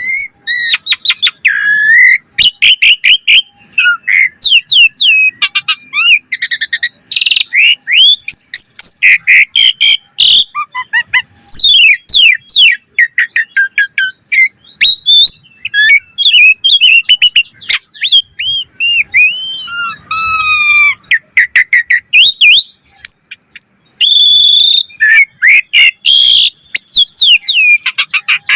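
Asian pied starling singing a fast, varied song: dense runs of loud whistles, chirps and harsh notes with quick pitch sweeps, broken by brief pauses.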